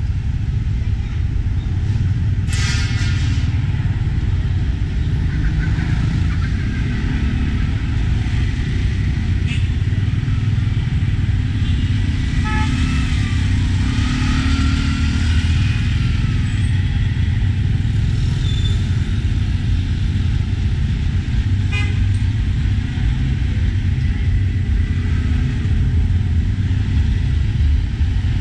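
Steady low rumble of a motorcycle-drawn tuk-tuk riding through city traffic, with a short horn toot about two and a half seconds in.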